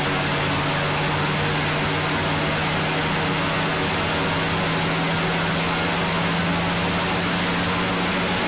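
Erica Synths Perkons Voice eurorack module producing a steady synthesized drone: a dense hiss over a low tone that slowly rises in pitch.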